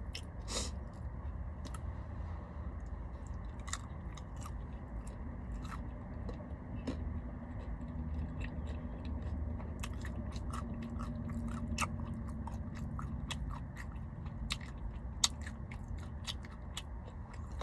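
A person chewing fast food close to the microphone: wet mouth clicks and smacks, scattered through and more frequent in the second half, over a low steady rumble.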